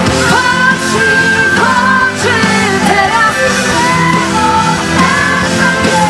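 Live pop-rock band playing, a woman singing the lead melody over keyboards, guitars and drums.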